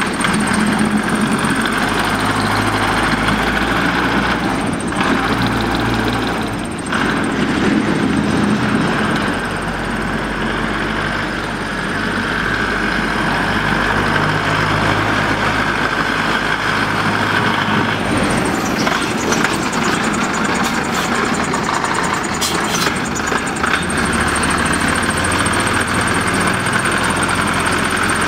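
Diesel engine of a small 46 kW, five-ton mining dump truck running steadily as the truck drives, its note shifting a few times, with a few brief clicks in the second half.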